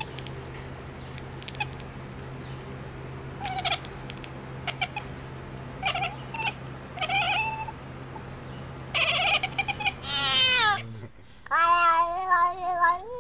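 Domestic cat meowing: several short meows, then a long meow that falls in pitch, and a drawn-out wavering meow near the end. A steady low hum sits under the first part and stops about eleven seconds in.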